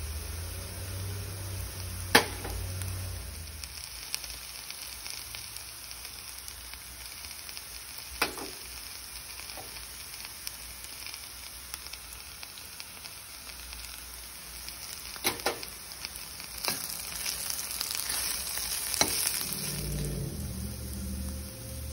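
Chopped onions and spices sizzling in oil in a stainless steel pan, with a steel spoon clinking sharply against the pan several times. The sizzle grows louder and busier with stirring near the end.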